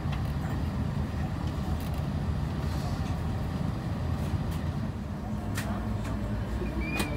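Steady low rumble inside the cabin of an Airbus A350-900 on the ground near the gate, with a few faint clicks.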